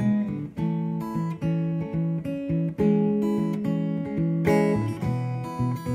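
Guitar strumming a chord progression, with chords changing every second or so.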